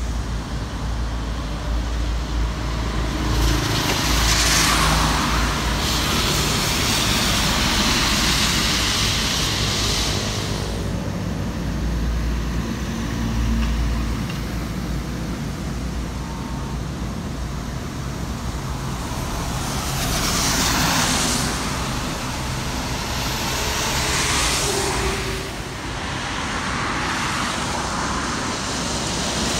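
Highway traffic of buses, trucks and cars passing on a wet road: a steady low rumble of engines, with the rushing hiss of tyres on the wet surface swelling and fading as vehicles go by, about four passes.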